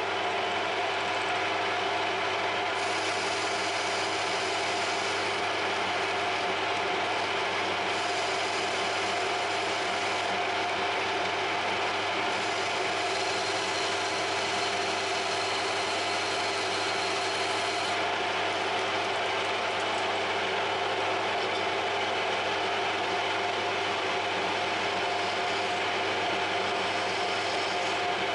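Harrison M300 geared-head lathe running steadily with a gear whine, while a parting-off tool cuts through the spinning part, adding a higher cutting hiss that comes and goes.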